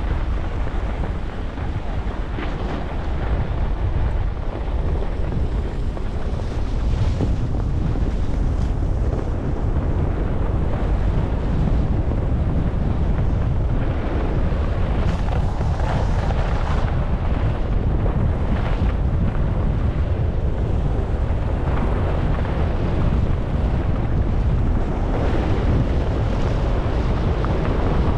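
Wind buffeting a GoPro HERO11's microphone on a skier moving downhill, a steady low rumble that grows a little louder as speed rises to nearly 60 km/h. Skis hiss and scrape on packed snow through the turns, coming and going every few seconds.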